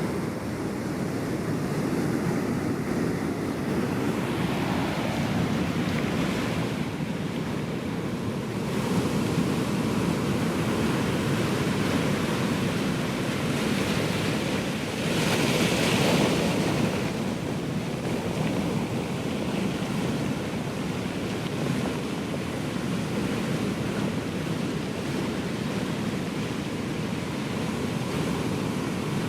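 Ocean surf washing in continuously as a steady rush. One wave breaks louder about halfway through.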